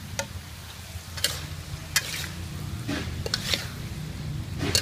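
Metal spatula scraping and clanking against a steel wok while vegetables are stir-fried, a sharp stroke roughly every second over a light sizzle of frying food.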